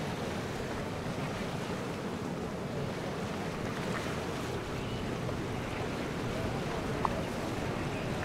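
Steady waterfront wash of a passing motor yacht: low engine rumble and moving water, with some wind on the microphone. There is a single short click about seven seconds in.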